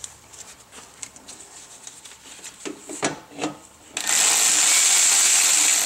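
Metal engine parts being handled, with scattered small knocks and clicks, then a cordless power tool running steadily for about two seconds near the end.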